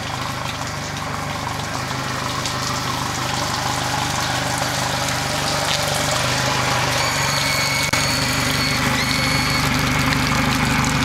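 Yamaha 90 hp four-stroke outboard motor idling steadily, run out of the water on the trailer.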